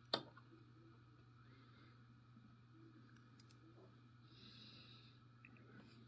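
One sharp click just after the start as the small parts of a pin-tumbler lock are handled while it is taken apart, then near silence with a few faint light ticks and a steady faint low hum.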